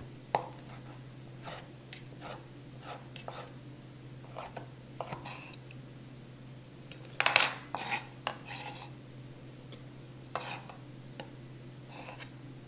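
Chef's knife chopping cooked chicken breast on a wooden cutting board: irregular light taps, with a louder cluster of knocks about seven seconds in and another a few seconds later.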